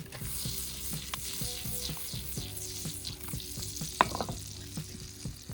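Hot dogs sizzling and crackling over a campfire: a steady fizz dotted with small pops, with one sharper pop about four seconds in. Soft background music with a steady beat underneath.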